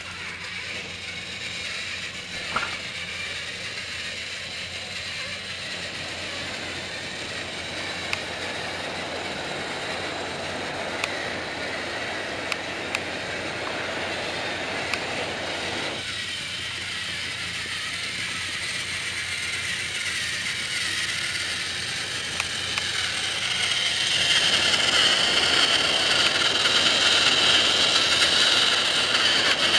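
Battery-powered motor and plastic gears of a Trackmaster motorized toy train whirring as it runs along plastic track, switched on right at the start, with a few sharp clicks along the way. It grows louder about three-quarters of the way through as the engine comes close.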